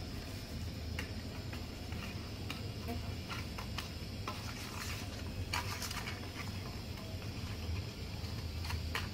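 A hand rubbing and turning turmeric-coated rohu fish steaks in a stainless-steel bowl makes soft wet squishes and light, irregular clicks against the metal, over a steady low hum.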